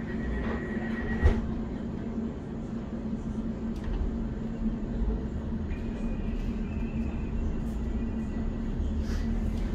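Inside a London Overground Class 710 electric train: a steady hum while it stands at the platform, with a high steady tone that stops at a single sharp thud about a second in. The train then pulls away, with a faint high whine from about halfway and a low running rumble building near the end.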